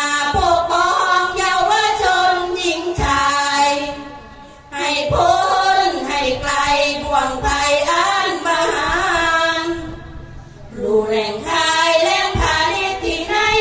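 Sorapanya, Isan Buddhist verse chanting: a group of women singing together without accompaniment, in long sliding melodic phrases with two short breaths between them, about four and ten seconds in.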